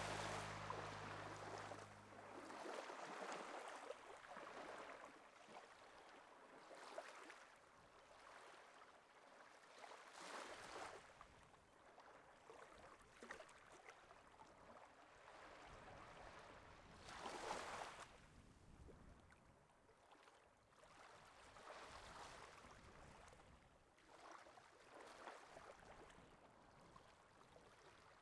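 Faint rushing water noise that swells and fades every few seconds, with the loudest surge a little past the middle.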